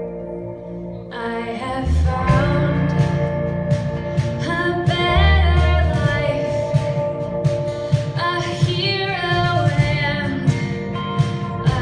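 A woman singing a pop ballad live with band accompaniment. Sustained instrumental chords give way to her voice about a second in, and bass and drums join about two seconds in.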